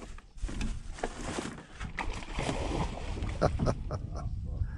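Water splashing and sloshing as an alligator moves off through floating plants beside the boat, with low voices.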